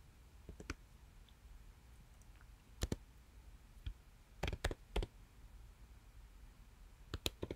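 Scattered keystrokes on a computer keyboard: a couple of single clicks, a run of three in the middle, and a quicker burst of taps near the end, with pauses between.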